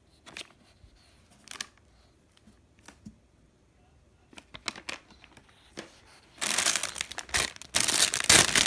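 Plastic packaging rustling a few faint times, then loud, dense crinkling from about six seconds in as a clear plastic bag of cat-treat sticks is grabbed and pulled out of the box.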